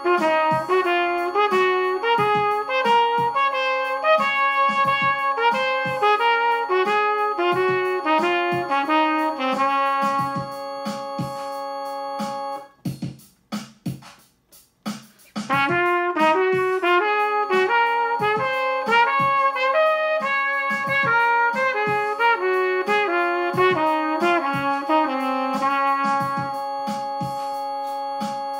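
Trumpet playing the E-flat major scale in thirds, quick stepping notes climbing and falling, over a held keyboard chord and a steady click beat. About thirteen seconds in everything stops for roughly three seconds, then the trumpet starts the pattern again.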